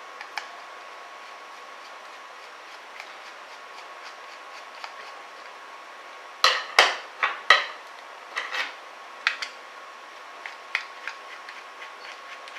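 Sharp clicks and clattering knocks of a screwdriver and small metal parts while the cooler fan is being unscrewed from a graphics card. A burst of several knocks comes about six and a half seconds in, followed by scattered lighter ticks.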